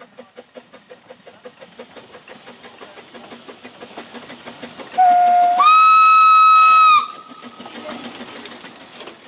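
Narrow-gauge Quarry Hunslet steam locomotives working past with rapid, regular exhaust beats, about five a second. About five seconds in the steam whistle sounds, opening on a lower note and jumping to a loud, shrill blast of about a second and a half, then the exhaust beats carry on.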